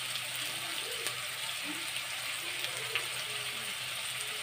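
Potato and kohlrabi pieces with sliced onion sizzling steadily in hot oil in a steel kadai, with a few faint ticks.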